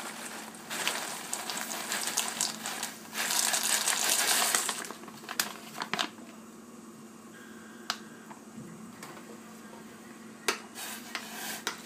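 Dry pasta shells and sauce mix poured from a packet into a saucepan of milk and water: a noisy rush from about one to five seconds in, followed by a few light clicks of a spoon against the pot as stirring starts.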